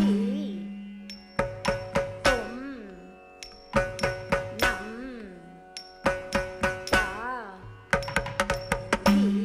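Live Carnatic accompaniment in Raga Nattai: clusters of sharp drum strokes with plucked veena notes that bend up and down in pitch, and a held low note about a second in and again near the end.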